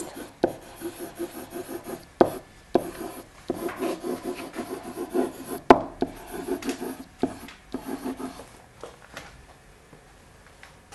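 Pen stylus scratching and rubbing across an interactive whiteboard as a word is handwritten, with a few sharp taps of the pen on the board. The strokes die away near the end.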